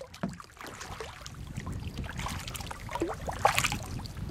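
Kayak paddle working the water: irregular splashes and drips, with small gurgles of water along the hull.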